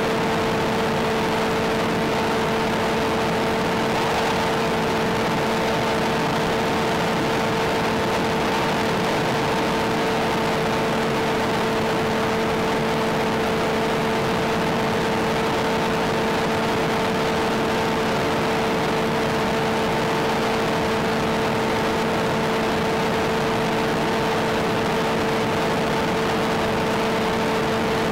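Constant static hiss with a steady, unchanging hum of a few fixed tones, typical of the audio channel of an analog FPV video receiver.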